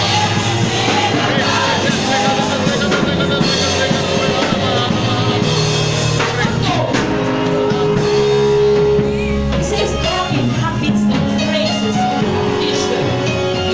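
Music with a sung vocal over a band of drums and guitar.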